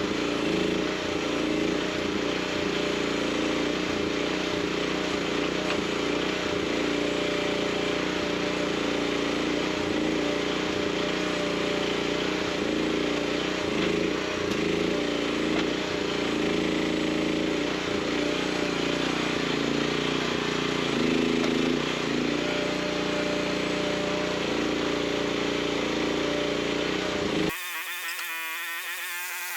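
Mini excavator engine running steadily under work. It cuts off abruptly near the end and gives way to a quieter, different sound.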